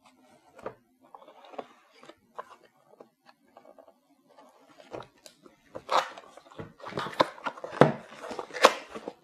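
Utility knife slitting the seals of a cardboard box, a few light scrapes and clicks, then from about six seconds in louder cardboard rustling and sharp knocks as the box is handled and opened.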